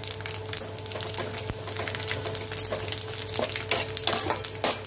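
Curry leaves and fennel seeds crackling and sizzling as a tempering fries in hot oil in a kadai, with a steel slotted ladle stirring through it. A steady low hum runs underneath.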